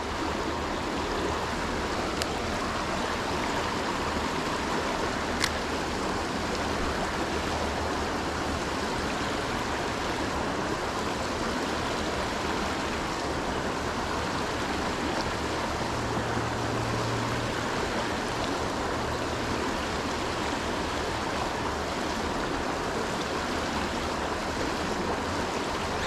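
Creek water rushing steadily over rocks in a shallow riffle, with one brief click about five and a half seconds in.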